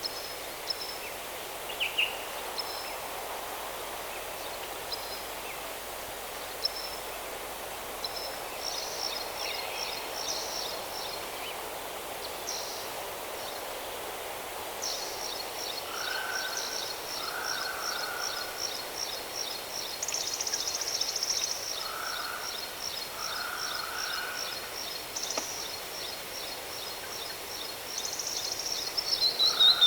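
Steady rush of a waterfall with birds calling over it: short high chirps at first, then from about halfway a rapid, evenly pulsed high trill that keeps going, with pairs of lower calls repeating every few seconds.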